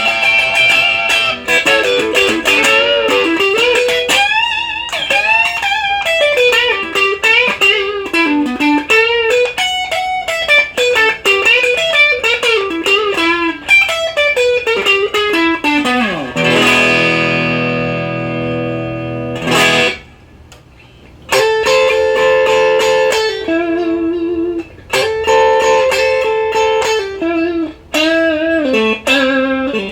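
Strat-style ESP LTD electric guitar with Duncan Designed pickups, played through a Maxon OD-9 overdrive and a Marshall DSL-1 amp, running fast single-note licks up and down the neck. About sixteen seconds in a long descending run ends on a low chord that rings for about three seconds and is cut off, followed after a short gap by choppy chord stabs and more licks.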